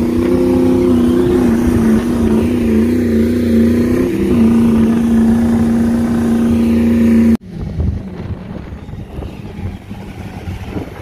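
Ford Super Duty pickup's diesel engine running hard at high revs, its pitch wavering and then holding steady, as its tyres spin in soft sand under a heavy tow. About seven seconds in it cuts off abruptly, giving way to a much quieter rumble with wind noise.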